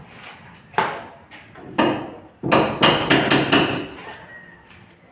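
Hand hammer striking repeatedly, about ten irregular blows. A few are spaced out, then comes a quicker, louder run of strikes about halfway through.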